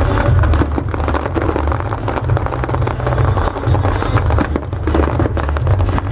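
Fireworks display: dense, continuous crackling from many small bursts, over a heavy low rumble.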